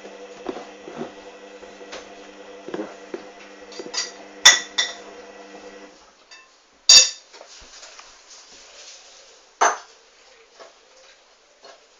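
Hoover Dynamic front-loading washing machine in its main wash: the drum motor hums as the drum turns, then stops about halfway through for the rest pause. A few sharp clinks and knocks come from inside the drum, the loudest just after the motor stops.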